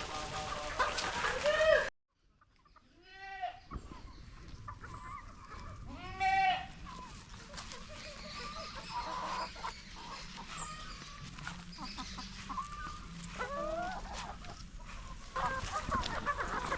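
Free-range native chickens calling: a handful of separate drawn-out squawks, the loudest about six seconds in.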